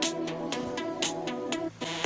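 Electronic dance music with a steady drum-machine beat of about four strokes a second over synthesizer notes, briefly cutting out near the end.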